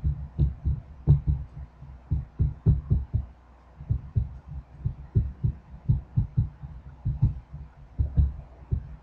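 Marker writing on a whiteboard: the pen strokes knock the board in an irregular run of short, dull low thuds, several a second.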